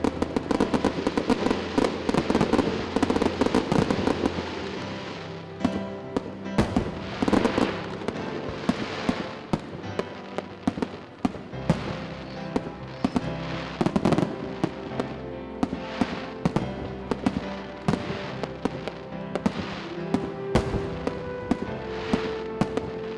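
Aerial firework shells bursting in quick succession, a dense run of bangs and crackle in the first few seconds, then separate bursts every second or so.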